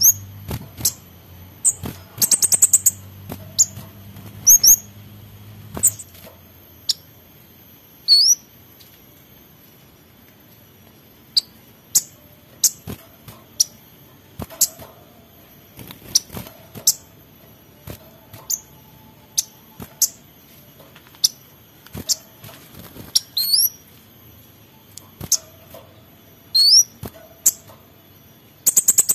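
Male orange-headed thrush singing agitatedly in short, sharp notes and quick rising whistles, about one every second, with a fast run of notes about two to three seconds in.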